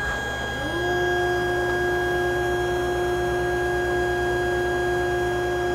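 Table saw running with a dado stack fitted, a steady whine with several held tones, while a workpiece is fed along the fence. About half a second in, a second, lower tone rises and then holds steady alongside it.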